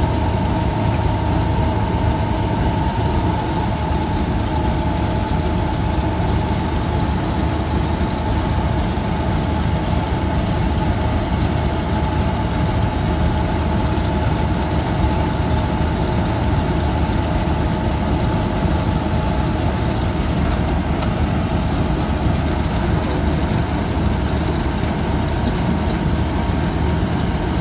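Combine harvester running steadily while its unloading auger discharges wheat grain into a tractor trolley: a constant engine drone with a steady higher hum over it and no breaks.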